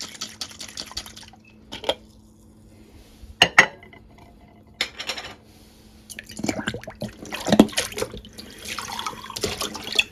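Water running and splashing into glass jars, with a few sharp clinks of glass, as the jars are part-filled with water for sterilising in the microwave.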